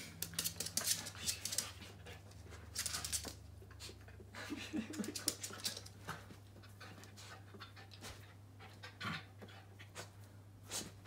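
Pembroke Welsh corgi puppy scuffling and sniffing at a whole watermelon: irregular bursts of claw scrabbling and snuffling, busiest in the first half, over a low steady hum.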